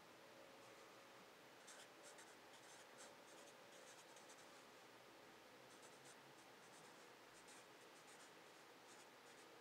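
Felt-tip marker writing on a paper legal pad: faint scratching strokes in quick runs, starting about two seconds in.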